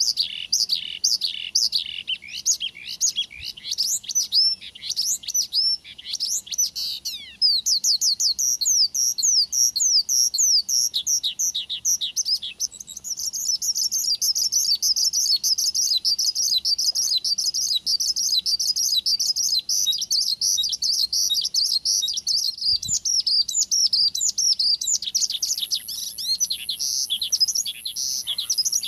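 Male bush lark (branjangan) singing a long, unbroken song of quick down-slurred notes, which runs into a dense, very fast trill for a stretch in the middle.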